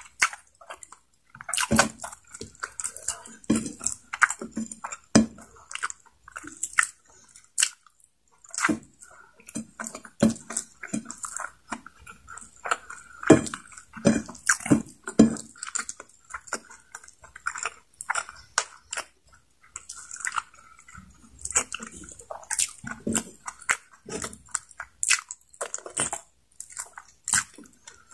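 Close-miked chewing and lip smacking of someone eating chicken neck adobo with rice, an irregular run of short mouth clicks and smacks, several a second.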